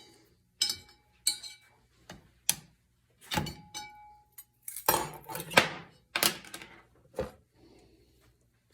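Steel clutch plates of a 700R4 transmission's reverse clutch pack clinking as they are handled and set into the drum: about eight separate sharp metal clinks, one of them ringing on for about a second.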